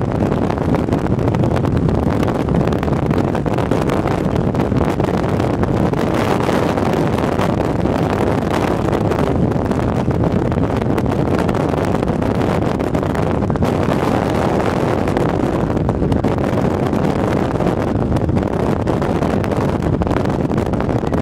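Steady, unbroken rushing noise with most of its weight low down.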